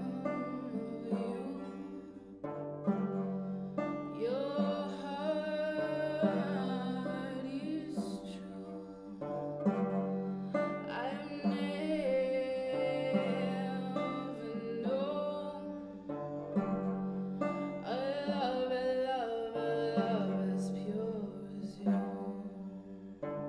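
A woman singing solo with an open-back banjo, her voice gliding and wavering between notes over low held tones, in a bare cinderblock stairwell.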